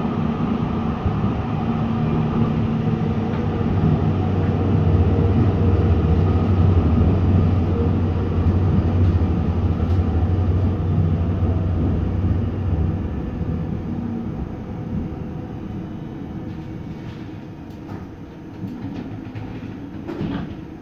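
Inside a TW6000 Stadtbahn light-rail car running along the track, with a steady low hum and rumble of the drive. The hum fades and the sound dies down over the second half as the car slows to a stop, with a few clicks near the end.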